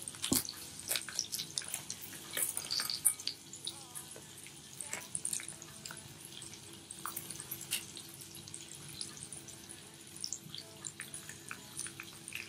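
Water trickling from a tap, with scattered small clicks and clinks, louder in the first few seconds, over a faint steady hum.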